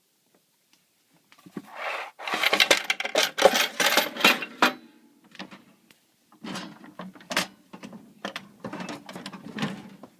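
Metal clattering and clinking as the parts of a vintage Northwestern vending machine are handled. It comes in two spells: a dense run of sharp clinks from about a second and a half in, then another run after a short pause.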